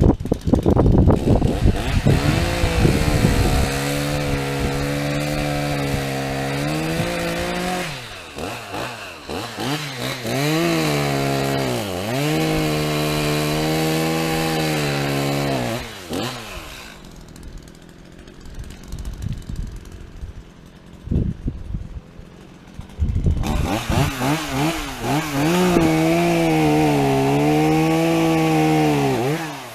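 Chainsaw cutting through fallen trees: the engine runs at high revs, its pitch sagging and recovering as the chain bites into the wood. The cutting goes in several stretches. Past the middle the saw drops to a low idle for several seconds before revving back into the wood, and it cuts off shortly before the end.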